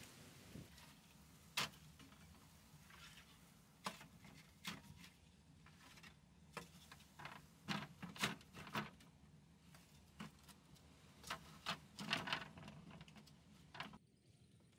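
Wooden poles knocking and clacking against each other and the frame as they are laid in place: about a dozen sharp wooden knocks at irregular intervals.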